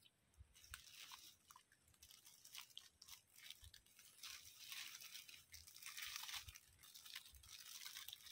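Faint, irregular crunching and crackling of dry leaves and twigs, as when walking through dry forest litter.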